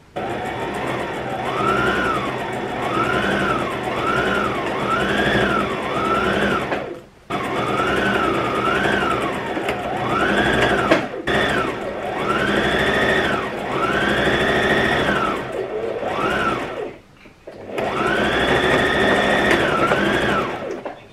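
Brother electric sewing machine stitching in three runs, stopping briefly twice. Its motor whine rises and falls in pitch over and over as the machine speeds up and slows down.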